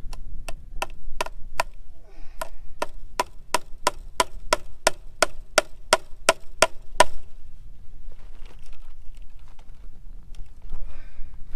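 Hammer blows driving a metal fastener into a wooden fence post, about three ringing strikes a second. The strikes pause briefly near two seconds in and stop about seven seconds in.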